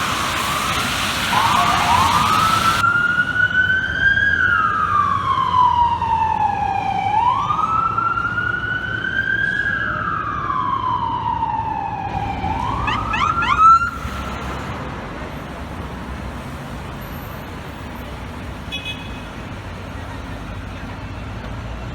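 Fire truck siren wailing, its pitch rising and falling slowly every five seconds or so, then switching to a few quick rising yelps before cutting off abruptly about 14 seconds in. After that, street traffic noise.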